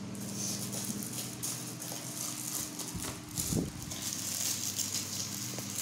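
Steady low hum under a faint hiss and rustle, with a few light clicks.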